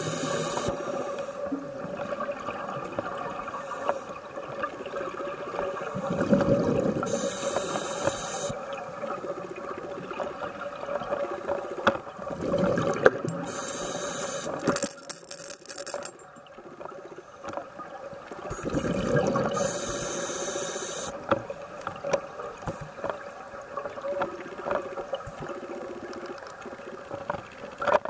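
Scuba diver breathing through a regulator underwater: a hissing inhale and a rush of exhaled bubbles about every six or seven seconds, four breaths in all, over a steady hum.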